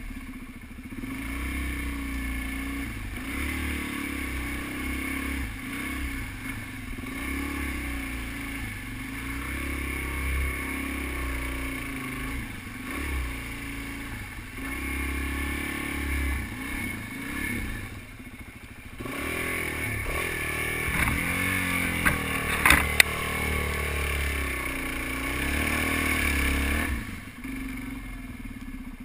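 Suzuki DR-Z400 dual-sport motorcycle's single-cylinder engine running, its pitch rising and falling as the throttle opens and closes while the bike is ridden through deep water and mud. A few sharp knocks about two-thirds of the way through are the loudest sounds.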